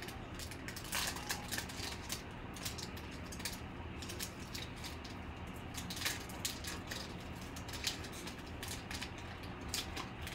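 Foil trading-card pack wrapper crinkling as it is torn open and the cards are slid out: a scatter of small crackles and ticks over a low steady hum.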